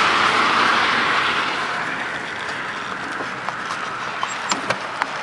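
A vehicle passing on the highway, a rush of road noise that fades over the first two seconds. From about three seconds in, a horse's hooves clop on the asphalt as separate sharp clicks.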